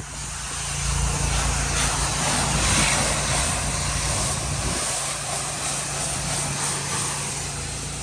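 Gas-engine pressure washer running steadily, its engine drone under the loud, even hiss of the high-pressure water spray.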